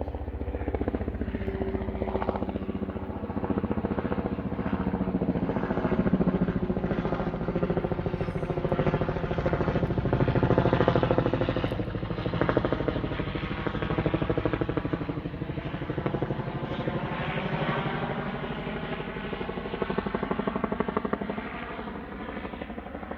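A running engine with a steady, low, fast pulse, growing louder through the middle and fading near the end.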